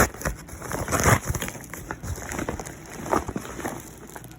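Packaging being ripped open and rustled by hand: a run of irregular tearing and crinkling noises, loudest right at the start and again about a second in, then quieter handling.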